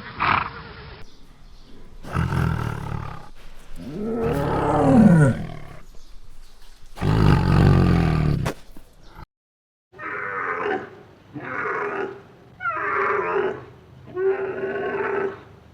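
Farm animal calls from clips cut together: a few long calls in the first half, one sliding up and then down in pitch, then after a brief cut, five short pitched calls about a second apart.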